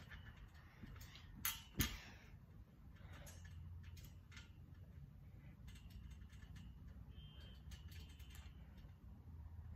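Trampoline springs creaking and the mat thumping under bare-foot landings, with two loud thumps close together about a second and a half in. After that come only faint creaks and clicks from the springs as she shifts her weight, over a low steady hum.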